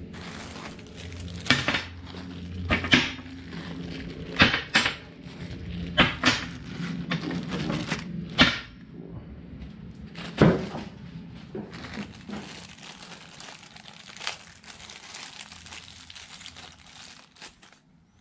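OEM LS3 rocker arms, each in its plastic bag, being unpacked from a cardboard box and set down on a workbench: a dozen or so sharp knocks of the metal parts landing on the bench, most in the first ten seconds, with plastic bags and cardboard crinkling and rustling in between.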